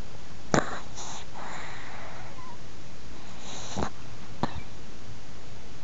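Elderly Chihuahua, fifteen and a half years old, snoring in its sleep: soft noisy breaths with three short sharp clicks, the loudest about half a second in.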